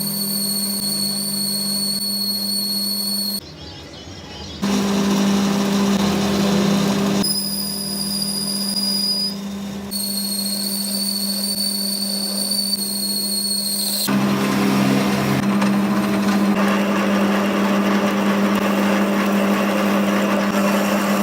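Workshop machinery running with a steady low hum and a high whine, changing abruptly several times.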